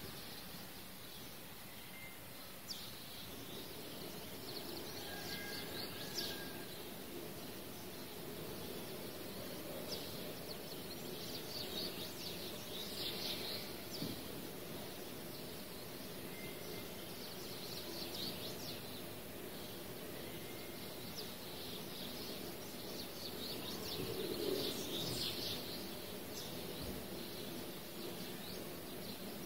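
Birds chirping faintly in short bursts every few seconds over a steady background hiss.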